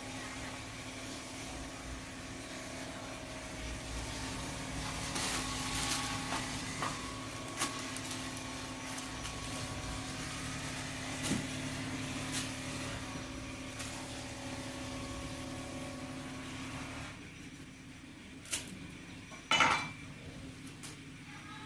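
Cleaver scraping and tapping against a wooden chopping board as food is peeled and cut: scattered sharp knocks, the loudest near the end, over a steady low hum.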